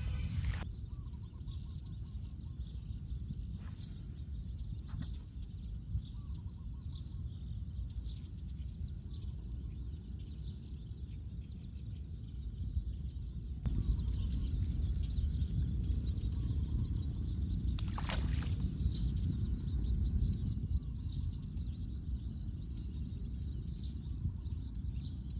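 Wind rumbling on the microphone across an open flooded field, louder for a stretch from about fourteen seconds in, with small birds chirping over it.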